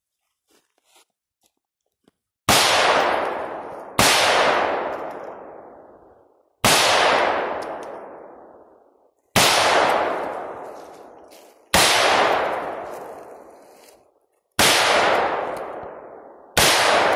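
Seven single shots from an AR-15 semi-automatic rifle, fired one at a time about one and a half to three seconds apart. Each shot trails off in a long echo of about two seconds.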